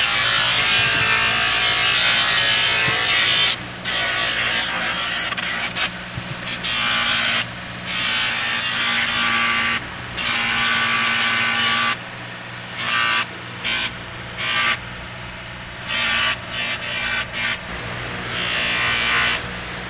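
Bench buffer motor running with a steady hum while the knife is pressed into its spinning cotton buffing wheel, giving a rushing friction noise that comes and goes as the piece is pressed and lifted: long passes in the first dozen seconds, then shorter, broken ones.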